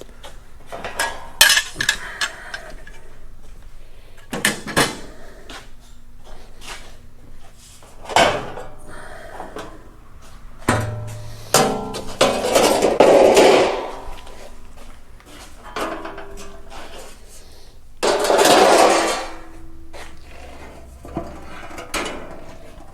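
Loose sheet-steel body panels being handled and fitted: irregular metal clanks and knocks, with longer scraping and rubbing as pieces are slid and set against each other, the longest about halfway through and again near the three-quarter mark.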